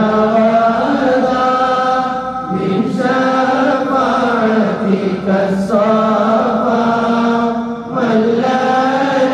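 A solo voice chanting an Arabic devotional song in long, slowly bending held notes, with brief breaks between phrases.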